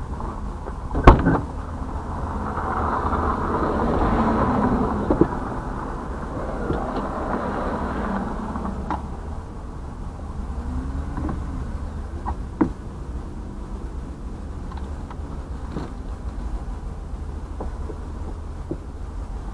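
A car passing close by on a dirt road, its tyre and road noise swelling to a peak about four seconds in and then fading as it drives away, over a steady low rumble. A few short sharp knocks stand out, the loudest about a second in.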